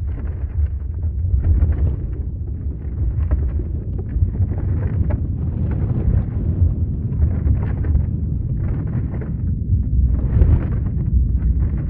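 Earthquake rumble: a continuous deep, low rumble with irregular crackling and rattling on top that swells and fades every second or so.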